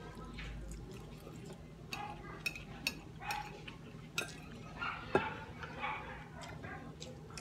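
Eating at the table: a spoon and fork clinking and scraping on a plate, with several sharp clinks (the loudest about five seconds in) among chewing and mouth noises.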